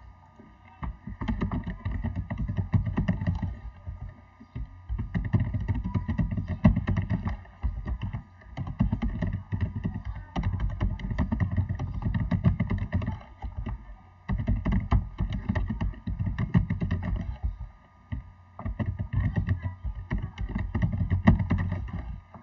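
Typing on a computer keyboard: rapid trains of key clicks with a dull thud, in about six bursts with short pauses between, one burst for each label word typed.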